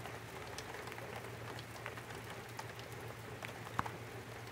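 Rain falling on gravel: a steady hiss of rain with single drops ticking sharply here and there, over a low steady hum.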